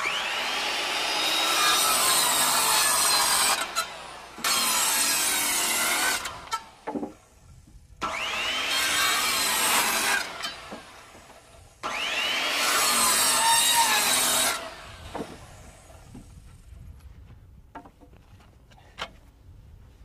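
Heavy circular saw cutting through a stack of lumber rafters in four passes of about two to three and a half seconds each, the motor's pitch sweeping as it spins up at the start of each pass. It winds down after the last pass.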